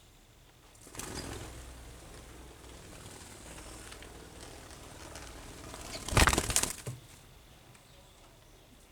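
Rustling, with a louder burst of rustling about six seconds in.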